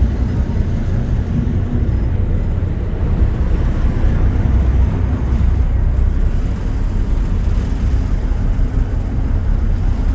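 Steady low rumble of a ferry under way, its engines running as it moves through the water.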